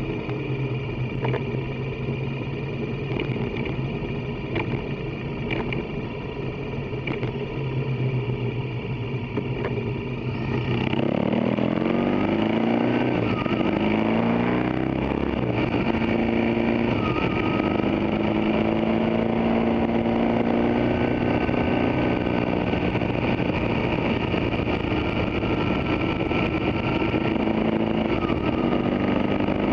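Motorcycle engine running under way, heard from on board. About eleven seconds in it grows louder and its pitch sweeps upward as the bike accelerates, then it runs steadily at the higher level.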